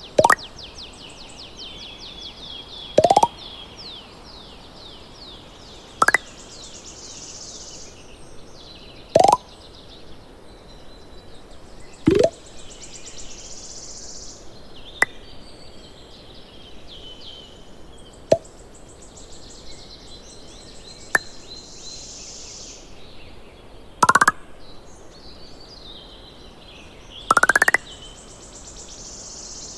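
Cartoon pop sound effects, one about every three seconds, most of them a short pop that sweeps quickly upward in pitch, a few just a sharp click. Between them runs a steady background of high chirps.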